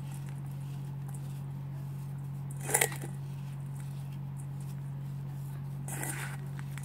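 A hand squeezing and crushing a wet paste of dry floral foam leftovers: two brief crushing sounds, the louder one about three seconds in and a weaker one about six seconds in, over a steady low hum.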